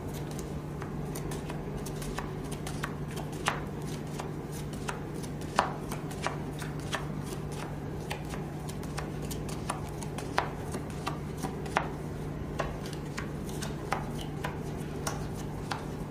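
Playing cards being dealt onto a felt card table: a string of light, sharp snaps and taps, about one to two a second at uneven spacing, as each card is slid off the deck and laid down. A steady low hum runs underneath.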